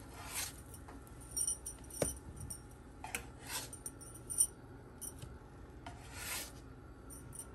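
A spatula scraping and sliding across a nonstick frying pan as pancakes are lifted off, in several short strokes, with a few light knocks against the pan.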